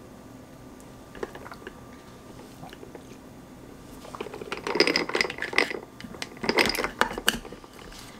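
A tight plastic lid being pressed and snapped onto a reusable plastic cold cup, with a straw through the lid: a cluster of clicks, crackles and short squeaks from about four seconds in, after a quiet start.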